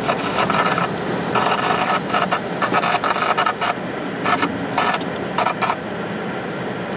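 Moving car heard from inside the cabin, with steady tyre and road noise on a wet road. Over it come short, irregular bursts of a higher pitched sound, which stop about six seconds in.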